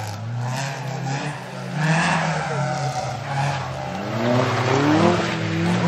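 Rally car at full throttle through a slide, its tyres skidding. The engine note climbs steadily over the last couple of seconds as the car accelerates away.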